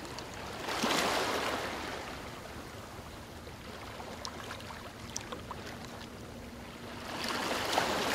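Ocean surf: waves washing in and drawing back, swelling about a second in and again near the end, with a few faint crackles between the swells.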